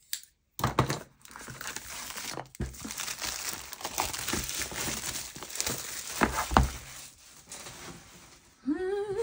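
Clear plastic shrink wrap being pulled off a boxed journal and crumpled, crinkling throughout with a couple of sharp snaps.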